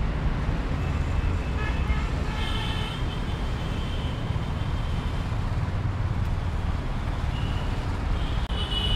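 Steady rumble of road traffic, with a vehicle horn sounding twice: about two seconds in and again near the end.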